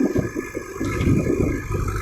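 Diesel engine of a JCB backhoe loader running under work, an uneven low rumble that surges and eases, with a steady higher whine over it.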